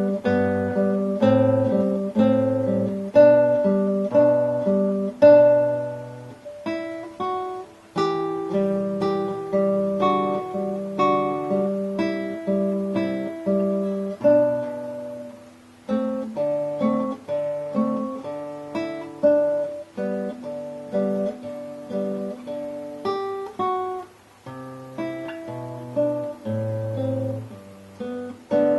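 Solo classical guitar, nylon strings plucked fingerstyle, playing a slow andantino study: a melody of single notes over bass notes. It goes in short phrases with a brief break roughly every eight seconds.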